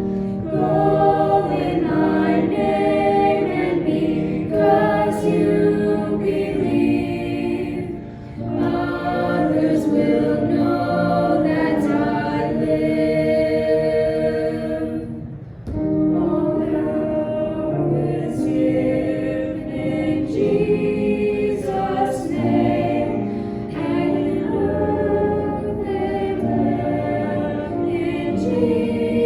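Choir singing, several voices together, with short pauses between phrases about 8 and 15 seconds in.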